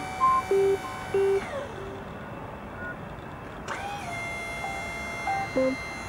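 Electro-hydraulic pump motor of a small electric truck's loading crane running with a steady whine. It winds down and stops about a second and a half in, then starts again with a rising whine a little past halfway and runs on while the boom moves. A few short separate tones sound over it.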